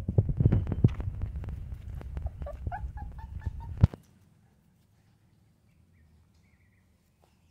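Phone microphone handling noise: rubbing, knocks and a low rumble, with a run of short high animal squeaks about two and a half seconds in. A sharp knock just before four seconds in ends the rumble, leaving near silence with a few faint high chirps.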